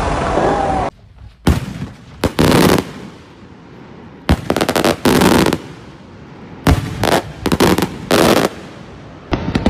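Music cuts off abruptly about a second in, giving way to aerial fireworks: sharp bangs and crackling volleys of bursting shells, in clusters a second or two apart.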